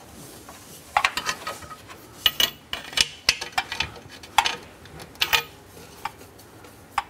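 Irregular light metallic clinks, taps and scrapes of hands and metal parts on a Porsche 911 GT3 RS exhaust as an oxygen sensor is threaded into the factory catalytic converter.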